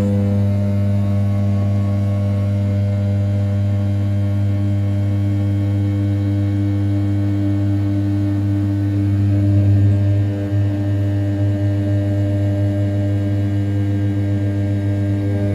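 500 W brushless spindle on an RZ420 desktop CNC mill running at 6000 rpm while the end mill rough-cuts the outer profile of an A7075 aluminium block. It makes a loud, steady, ringing hum pitched around 100 Hz, which swells briefly just before halfway through and then dips for a moment.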